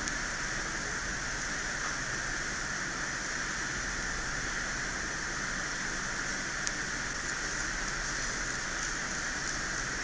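Steady background hiss, with a faint single tick about two-thirds of the way through.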